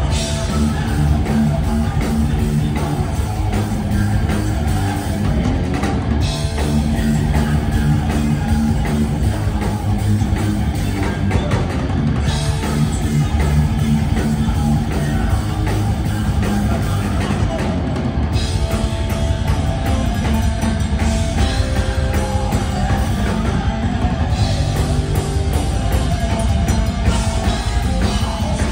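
A thrash metal band playing live: distorted electric guitars, bass and a drum kit under a singer's vocals, loud and dense throughout.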